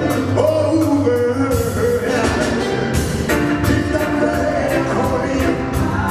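Live reggae band playing with a steady beat: drum kit, bass and electric guitars.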